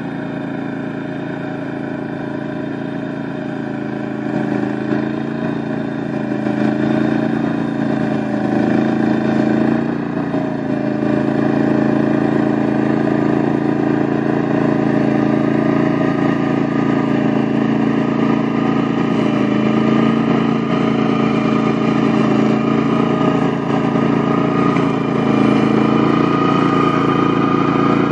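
Pasquali two-wheeled tractor's small engine running steadily under load, driving a Berta flail mower through long grass. It grows louder over the first ten seconds or so as the machine draws nearer, then holds.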